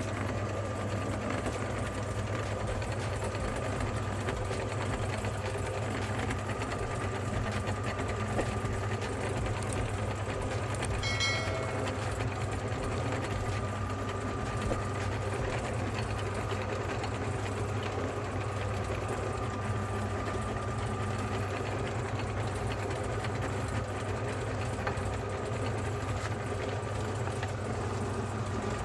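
Electric meat grinder's motor running steadily, with a low hum and a thin whine. A brief high squeak comes about eleven seconds in.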